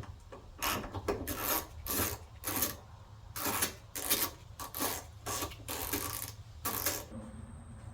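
Hand ratchet wrench being worked back and forth in short, irregular rasping strokes while loosening fasteners on the RX-7's ignition coils; the strokes stop about seven seconds in.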